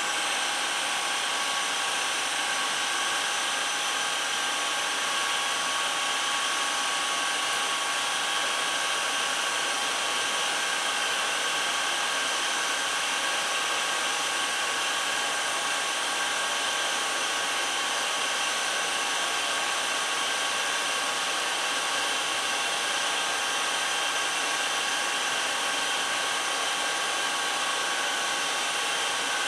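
Revent 724 G double rack gas oven running: a steady airy whir with several high whining tones, switching on abruptly at the start as the oven is restarted.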